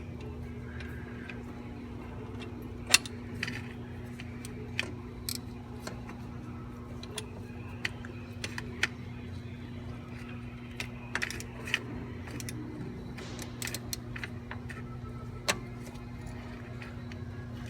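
Hand tools clinking and clicking against metal engine parts, a scattered series of sharp irregular clicks with the loudest about three seconds in, over a steady low hum.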